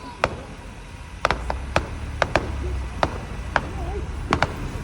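Fireworks going off: about a dozen sharp bangs and pops at irregular intervals, with a low rumble underneath for a couple of seconds.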